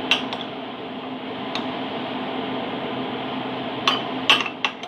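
A metal kitchen utensil clinking against metal cookware: two sharp clinks at the start, one more after about a second and a half, and a quick cluster of four near the end, over a steady background hum.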